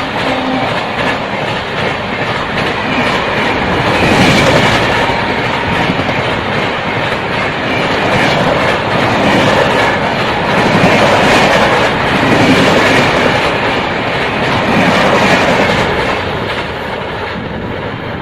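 LHB coaches of an express train passing close at speed: a steady, loud rush of wheel and rail noise with rapid clattering over the rail joints, swelling and easing as the coaches go by.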